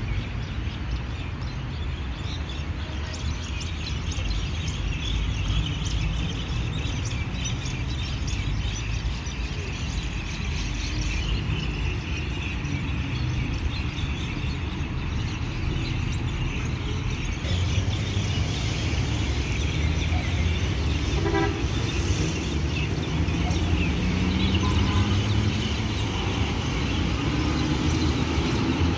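Steady city traffic noise from cars on a busy street. About two-thirds of the way in comes a short pulsing toot, and near the end a vehicle's engine rises in pitch as it speeds up.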